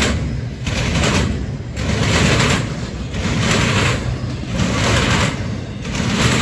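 Double-stack intermodal freight train rolling past: a steady low rumble of steel wheels on rail, with a rush of higher noise that swells about once a second as the well cars go by.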